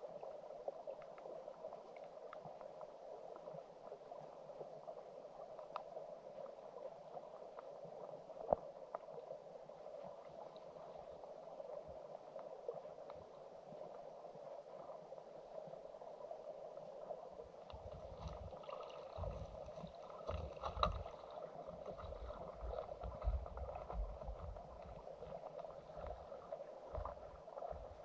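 Flowing stream water heard from underwater, a steady muffled murmur with scattered faint clicks. From about two-thirds of the way through, irregular low rumbling bumps join in.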